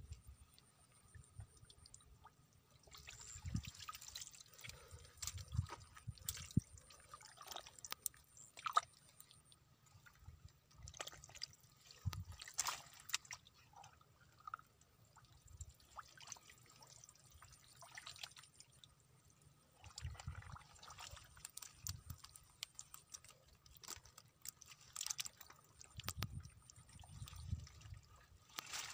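Hands groping through mud and shallow muddy water, with irregular small splashes, drips and squelches.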